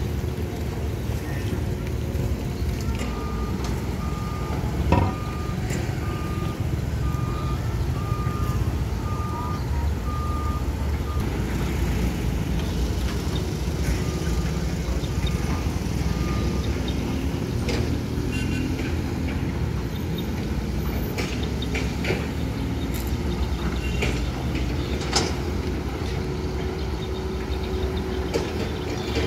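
Caterpillar 320-series hydraulic excavators running their diesel engines at work, with a steady low rumble and an occasional clank. A backup alarm beeps about once a second for several seconds early on, then a few more times.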